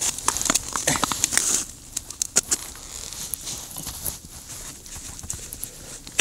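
Rustling and light clicks of a plastic bucket of dry groundbait (sunflower cake, rusks and semolina) being handled, with a hand scooping the crumbly mix. The rustle is densest in the first second and a half, then comes in scattered small clicks.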